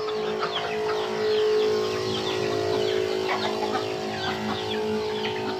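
A flock of chickens clucking, with many short high falling calls, over a steady hum.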